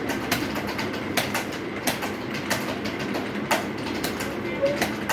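Computer keyboard keys clicking in an irregular patter of typing, about two to three sharp clicks a second, over a steady background hum.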